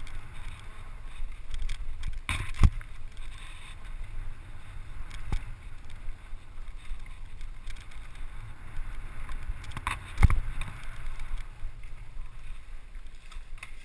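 Mountain bike descending rough forest singletrack: a steady rumble and rattle of tyres and frame over the ground with wind buffeting the microphone, broken by hard knocks from the bumps about two and a half seconds in and again about ten seconds in.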